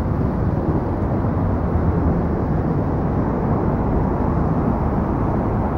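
Steady rumble of city traffic, with no single event standing out.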